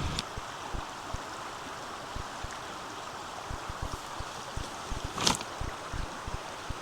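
Steady rush of a river running high, with one sharp click about five seconds in.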